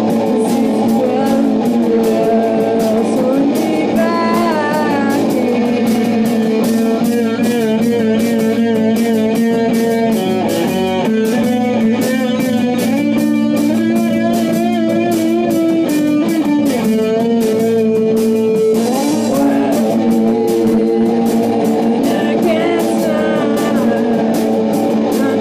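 Rock band playing live: electric guitars and bass over a steady drumbeat.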